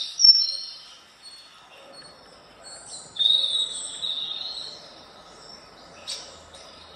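Recorded bird chirps and song playing through an Amazon Echo Show's small speaker. There is a short chirp at the start and a longer warbling phrase about three seconds in, with a brief sharp chirp near the end.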